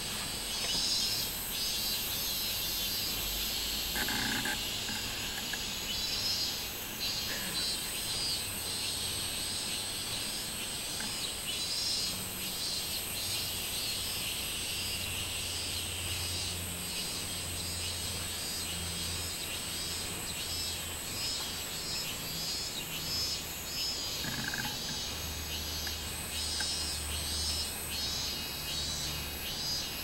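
Robust cicadas (minmin-zemi, Hyalessa maculaticollis) singing in a chorus: a high-pitched, rapidly pulsing song in repeating phrases, with a steady high whine running beneath it.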